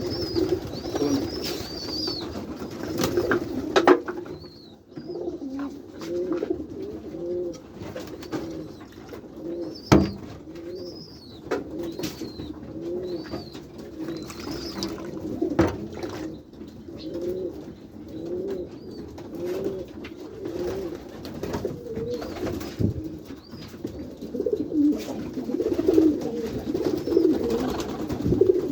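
A loft full of domestic pigeons cooing: many short, overlapping rising-and-falling coos one after another. A few sharp knocks, about 4, 10 and 16 seconds in, are the loudest moments.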